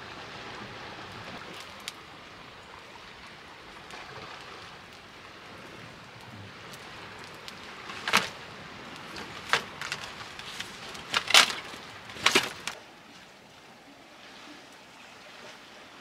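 Dry sticks cracking and snapping: a handful of sharp cracks clustered about halfway through, the loudest a little after that, over a steady hiss of wind and surf.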